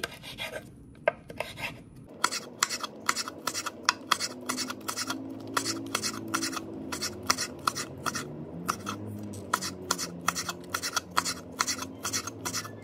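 Kitchen knife slicing chillies on a wooden chopping board: the blade knocks on the board with each cut, a few slow cuts at first, then quick, even knocks about four a second from about two seconds in.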